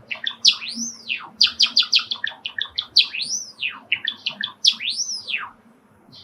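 Male Java sparrow singing: quick runs of clicking, chirping notes, broken three times by a long whistled note that rises and then falls. The song stops shortly before the end.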